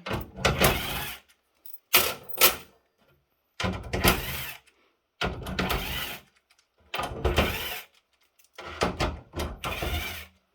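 Electric screwdriver backing screws out of a switch's main board in six short runs of about a second each, with brief pauses between.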